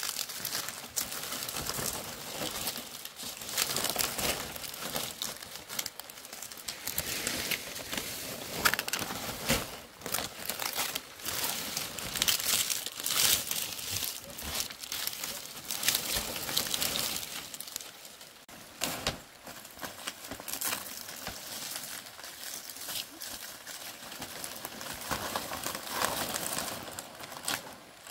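Large fan-shaped palm leaves rustling and crackling as they are handled and laid over a bamboo roof frame. The rustles come in irregular bursts and ease off somewhat in the last third.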